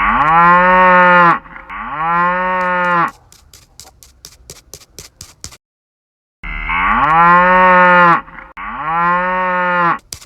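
Cow mooing twice, a long moo and then a shorter one, followed by a quick run of clicks. The same sequence plays again identically about six seconds in, like a repeated sound clip.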